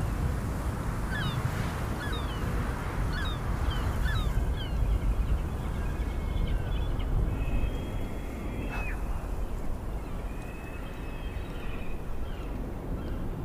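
Birds calling over a steady low wind rumble: a run of short falling calls in the first few seconds, then thinner, higher calls.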